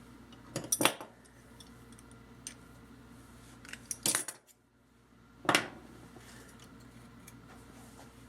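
Small metal tools clinking and clattering against a hard work surface in three short bursts: about a second in, around four seconds in, and again about a second and a half later. A faint steady hum runs underneath.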